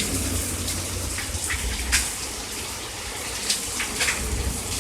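Steady rain falling with water gushing and running, scattered drops striking now and then over a low rumble.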